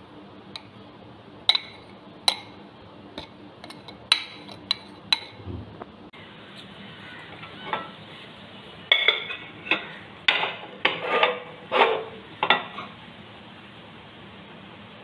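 Steel spoon clinking and scraping against a glass bowl and a metal rice cooker pot as cooked rice is scooped and packed into the bowl. Scattered single clinks in the first half, then a quick run of louder clinks and knocks about nine seconds in.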